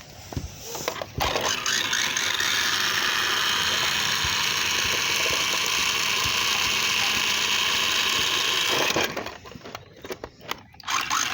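Electric motor of an RC car running at a steady high speed with a whirring whine. It starts about a second in and dies away near the end.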